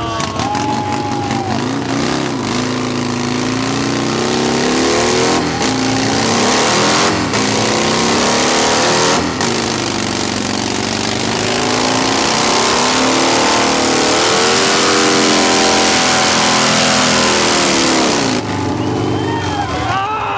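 Motorcycle engine revving hard again and again in a burnout, its pitch climbing and falling over the steady rushing noise of the spinning, smoking rear tyre. The revs drop away near the end.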